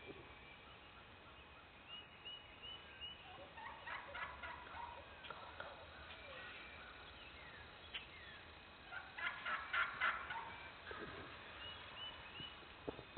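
Wild turkey gobbling twice, a rattling gobble about four seconds in and a louder one around nine to ten seconds in. Small birds chirp faintly in the background.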